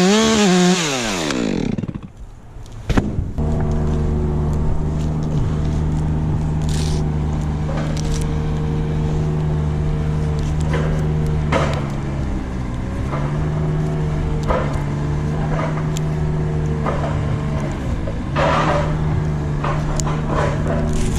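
Chainsaw running at full throttle, then let off about a second in, its pitch falling away. After that a steady engine drone carries on, with two brief dips and scattered clicks and knocks.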